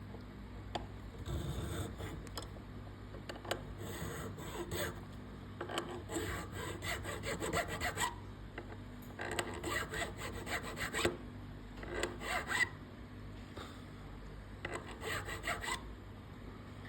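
An unbleached bone guitar nut being sanded, rubbed back and forth on abrasive in about six short spells of quick scratchy strokes with brief pauses between them.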